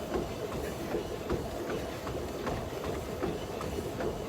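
Treadmill running, with a steady belt-and-motor noise and footfalls landing in an even rhythm on the moving belt.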